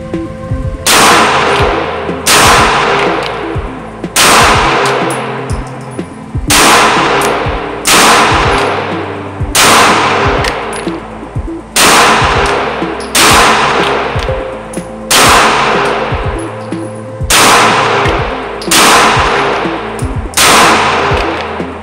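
CZ P10C 9mm pistol firing twelve shots in four three-round Mozambique strings, the shots in each string about a second and a half apart with a longer pause between strings. Each shot rings out with a long echo off the walls of an indoor range, over quiet background music.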